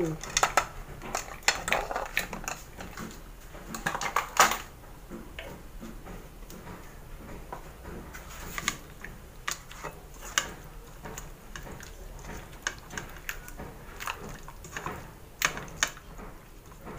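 Light clicks and clinks of plastic measuring spoons and an aluminum pan being handled as ground pepper is spooned onto raw spare ribs, with a cluster of taps in the first few seconds and scattered ones after.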